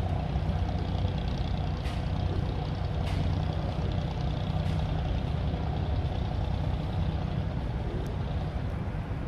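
A boat's diesel engine running with a steady low drone.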